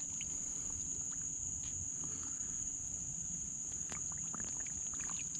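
Insects droning in a steady high-pitched chorus over a faint low hum, with a few faint clicks.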